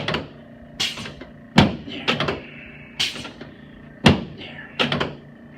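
About six sharp knocks at uneven spacing, each with a short ringing tail, from a chiropractor's adjusting thrusts on a treatment table as he works down the lumbar spine.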